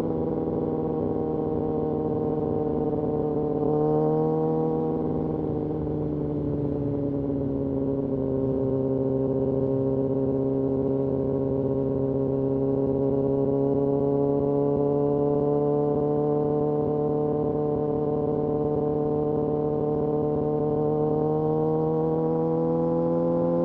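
Kawasaki Ninja ZX-6R inline-four engine running at a steady, high-pitched drone under light throttle. Its pitch lifts briefly about four seconds in, eases off a little, then climbs slowly near the end.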